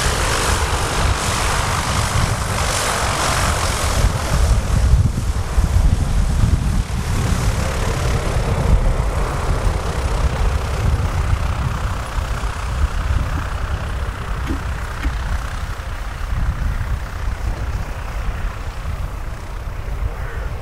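Single piston engine and propeller of a Piper Cherokee light aircraft running steadily as the plane rolls along the runway, a continuous drone with a strong low rumble that grows a little fainter near the end as it moves away.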